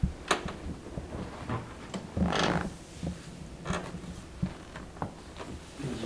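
Side-posture chiropractic back adjustment on a padded table: a few short, sharp clicks and knocks from the body and table, with one longer, louder rush of noise about two seconds in.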